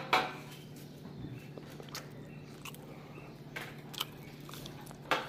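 Several sharp knocks and clicks, the loudest just after the start and another near the end, with smaller ones in between, over a steady low hum.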